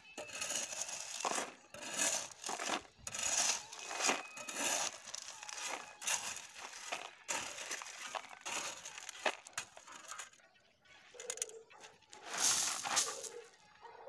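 Steel shovel scraping into a heap of crushed stone and scooping it into a steel pan, the stones crunching and rattling in a series of short scrapes. After a quieter gap near the end comes one more loud rush of stones.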